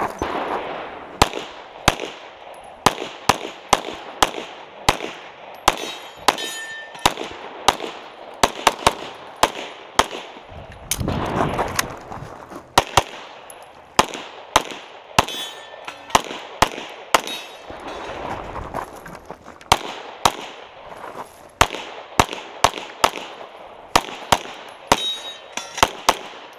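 A .45 ACP pistol fired in quick strings of shots, dozens in all, with short pauses for movement and reloads. Several hits are followed by the brief ring of steel targets.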